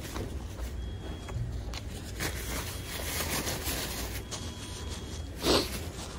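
A paper food wrapper being crumpled and scrunched by hand, crackling and rustling for a few seconds, with one louder crunch near the end.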